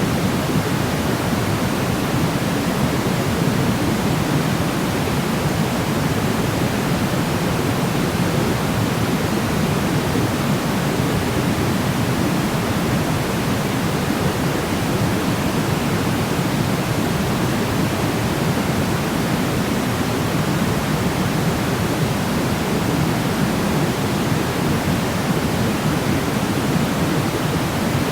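Steady sleep noise: an even, unbroken rush with no tones or clicks, heaviest in the low and middle range and thinning toward the top, unchanging throughout.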